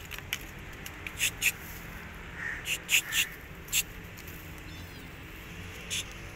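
A kitten's claws scraping on tree bark as it climbs, in a string of short scratchy scrapes, about seven in all, bunched in the first four seconds with one more near the end.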